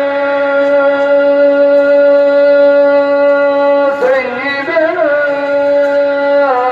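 A man chanting the salâ, the Islamic call recited from a mosque. He holds one long steady note for about four seconds, then ornaments the line with quick rising and falling turns, and settles on a new held note near the end.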